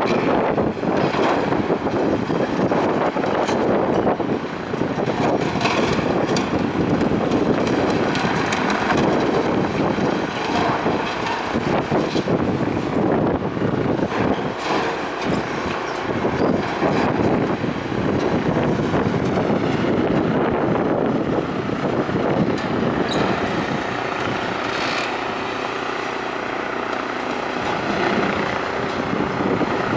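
Strong wind buffeting the microphone, a steady loud rushing with irregular gusts.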